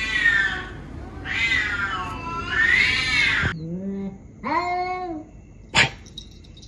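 Domestic cats caterwauling: long, wavering, high yowls that rise and fall, then two shorter, lower calls. A single sharp click comes near the end.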